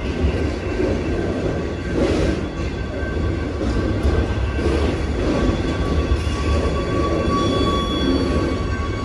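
Amtrak Auto Train autorack cars rolling past on the rails as the train pulls into the station: a steady rumble of wheels and cars, with thin high squeal tones from the wheels that grow stronger in the second half as the train slows.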